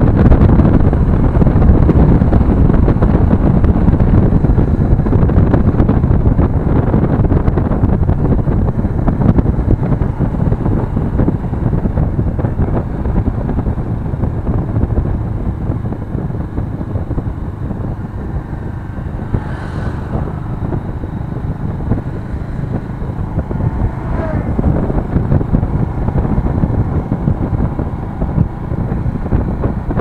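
Motorcycle riding along an open road: wind rushing over the handlebar camera's microphone, with engine and road noise underneath. The rush eases somewhat partway through as the bike slows.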